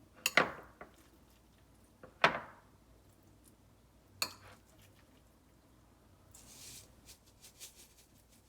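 Three sharp knocks of hard objects, each ringing briefly, about two seconds apart, followed by a short rustle with small clicks near the end.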